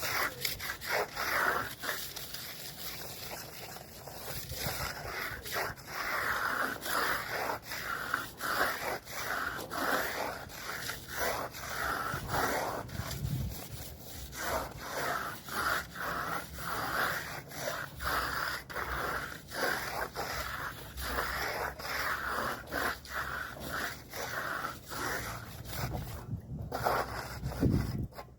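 Repeated scraping strokes, about one a second, with light clicks between them: a hand tool worked back and forth over a wall surface.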